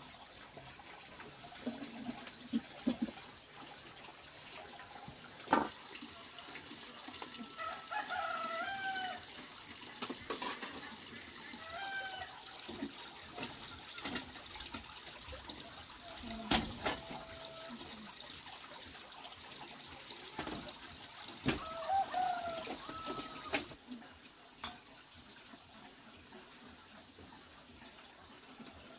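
Chickens clucking and calling in short, bending calls several times, with scattered knocks of dishes and utensils over a steady hiss that drops away about three-quarters of the way through.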